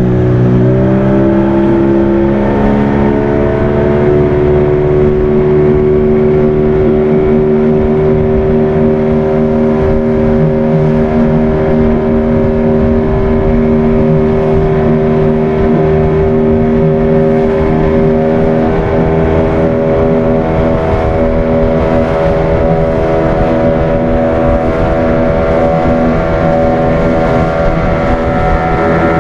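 Outboard motor running steadily at cruising speed. Its pitch rises a little about a second in, then holds steady.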